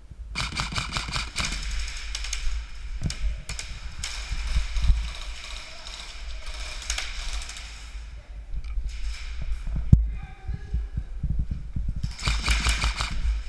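Airsoft electric guns firing full-auto in buzzing, rattling bursts about a second long, four or five times, over a low rumble of movement. A sharp single knock comes about ten seconds in.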